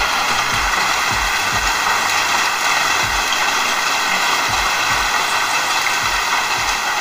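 Torrential storm rain pouring down in a loud, steady hiss, with irregular low thumps throughout.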